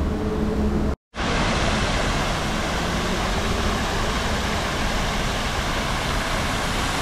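For about a second, a city bus's diesel engine idles with a steady low hum. Then, after an abrupt cut, a spray fountain's jets fall and splash into its pool as a steady, even rush of water.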